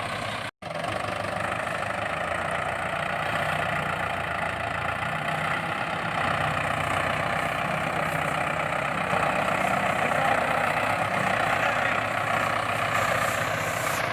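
An engine running steadily at idle. It cuts out completely for an instant about half a second in.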